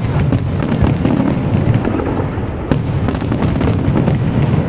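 Aerial fireworks display: a continuous barrage of bangs and crackles over a dense low rumble of shells bursting.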